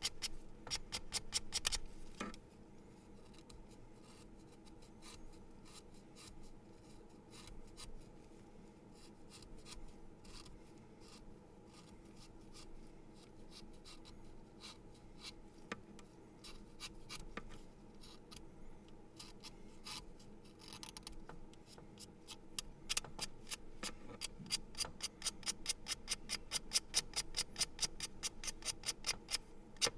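A pencil being sharpened: a run of short, sharp clicks as the blade shaves the wood, quick and dense for the first couple of seconds and again over the last several, sparser in between.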